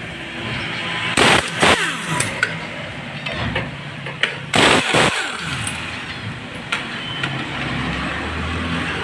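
Impact wrench loosening the bolts of a scooter's clutch cover, running in two short bursts, about a second in and again near the middle, its motor whirring up and winding down around each burst.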